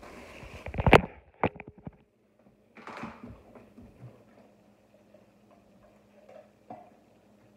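A phone being handled and set down on a countertop: rustling, a sharp knock about a second in, then a few light clicks. After that the room is quieter, with a faint steady hum and a soft click or two.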